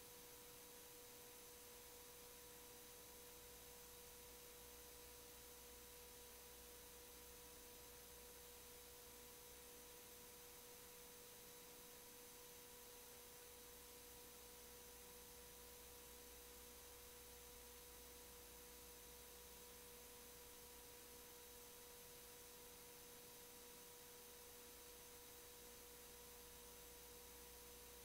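Near silence: a faint, steady single tone held without change over a faint hiss, the idle noise of the audio feed.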